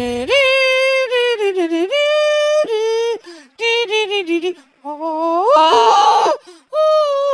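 A person singing a tune without words in a high voice: held notes that step up and down in pitch, with short breaks, and one rough, cracking stretch about six seconds in.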